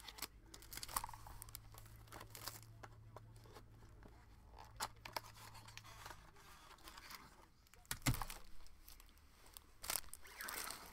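Faint crinkling and rustling of plastic trading-card packaging and a clear plastic card holder being handled, with scattered small clicks and one sharper knock about eight seconds in.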